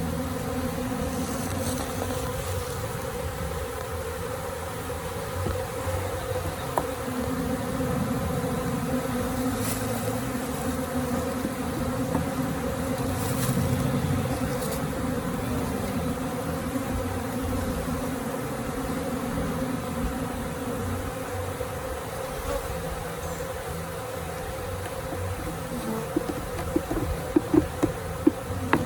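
A honey bee swarm buzzing, a steady dense hum of many bees. A few light knocks near the end.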